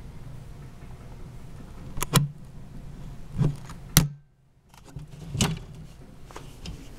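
Handling noise as the camera is moved: a low steady hum broken by several sharp knocks and clicks, two close together about two seconds in and louder ones around three and a half, four and five and a half seconds. The sound drops away for about half a second just after the sharpest click.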